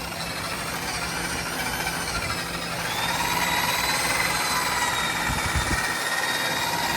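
Electric polisher spinning a wool buffing pad against a plastic headlight lens. About three seconds in, its whine gets higher and a little louder as the machine speeds up on its own, which the owner puts down to the polisher wearing out.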